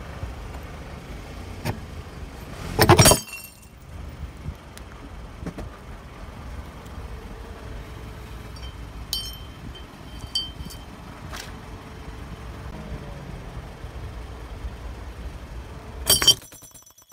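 Glass bars crushed under a slowly rolling car tyre over a low engine rumble. The first bar shatters with a loud crack about three seconds in, loose shards clink lightly around nine to ten seconds, and a second bar bursts with another crack near the end.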